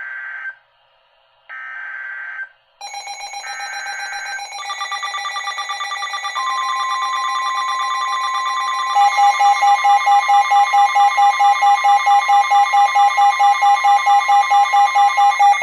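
Emergency alert broadcast: three short buzzy bursts of SAME digital header data, then several alert tones stack up, a steady warning tone joined about nine seconds in by loud rapid beeping, about three beeps a second, from a weather alert radio going off for a flash flood warning.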